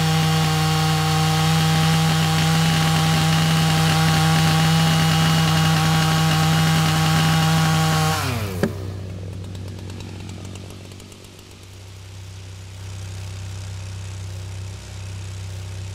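Two-stroke chainsaw running flat out at a steady high pitch as it cross-cuts an oak trunk. About eight seconds in, the engine note drops sharply and dies away, with a click. A quieter low hum is left.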